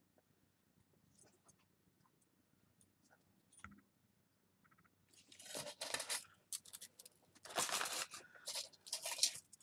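Rustling and scraping of paper and thin metal as stamped iron filigree pieces are slid around by hand on a sheet of paper, in several bursts over the second half; before that only a few faint clicks.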